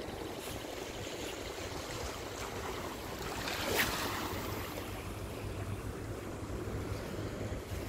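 Sea waves washing over rocks at the foot of a seawall, a steady rushing of water, with a brief louder rush about four seconds in. A low steady hum comes in past the middle.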